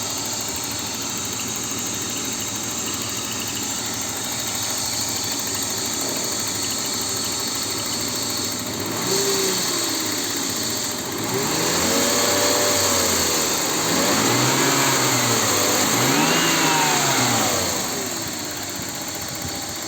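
BMW E39's M52B28 2.8-litre straight-six idling steadily, then revved four times from about halfway in, each rev rising and falling back, before settling to idle near the end. This is an engine with a ticking noise.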